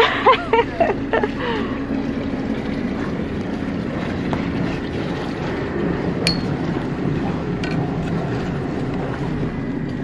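A Carver 504 motor yacht's engines running steadily at low speed as it pulls away from a wall, with wind on the microphone. A couple of shouted calls come in the first second or so, and there are two short clicks later.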